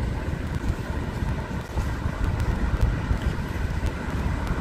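City street noise on a phone microphone: a steady low rumble of wind on the mic and distant traffic.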